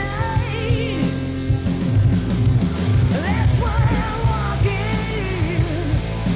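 Melodic rock band recording playing, with a steady drum beat underneath and a wavering lead melody on top.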